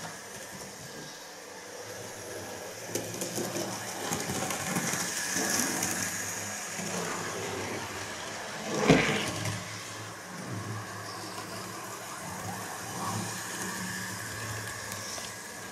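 Model GWR Class 56xx tank locomotive by Bachmann running steadily along the layout's track, its small electric motor and wheels on the rails making a continuous mechanical hum. One loud knock comes about nine seconds in.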